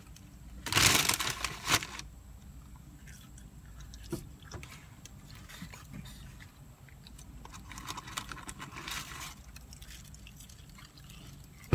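Someone eating French fries from a paper fast-food bag: a loud crinkle of the bag about a second in, then quiet chewing, small clicks and scuffs, and a softer rustle of packaging around eight seconds in, over a steady low hum.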